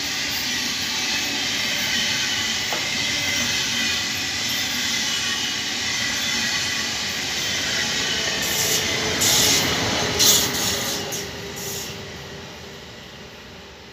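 Deutsche Bahn ICE high-speed train passing close by at speed: a steady rush of wheels on rail with a faint whine, louder with bursts of hiss about nine to eleven seconds in, then fading as the train draws away.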